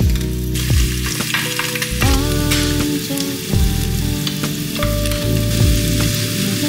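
An egg frying in a pan on a gas burner, with a steady sizzle, over background music.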